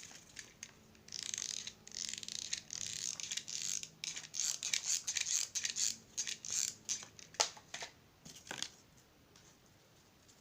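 Cardboard being cut: a crackling, crunching run of cuts starting about a second in, then two sharp snaps near the end.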